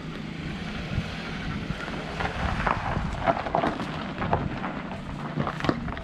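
Toyota Avensis driving slowly out over a dirt track, its engine running low under a rumble of wind on the microphone. Scattered short crackles come in the second half.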